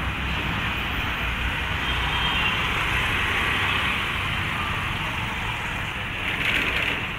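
Steady street traffic noise: engines and tyres of vehicles running and passing, briefly a little louder near the end.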